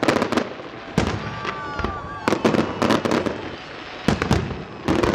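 Fireworks display: shells bursting in quick succession, sharp bangs about two a second with crackling between them.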